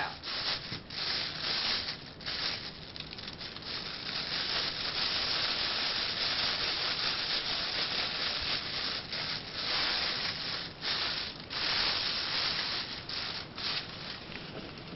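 Thin high-density plastic merchandise bags crinkling and rustling as hands work them, feeding the bag sections up and pulling them out to fluff them on the lei rope. The rustle runs steadily with a few brief pauses.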